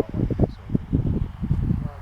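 Indistinct voices talking, low and muffled, with no clear words.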